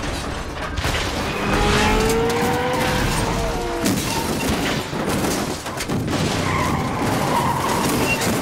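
Car chase sound effects: tires squealing in long gliding wails over engine noise, with several sudden heavy crashes as cars tumble and roll along the road.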